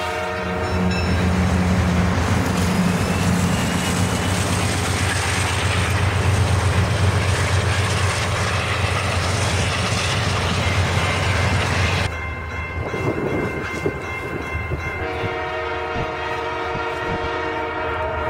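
A train horn sounds a multi-tone chord that stops just after the start. A train then passes close by with a low engine drone and loud rushing wheel-on-rail noise, which cuts off suddenly about twelve seconds in. The horn chord sounds again near the end.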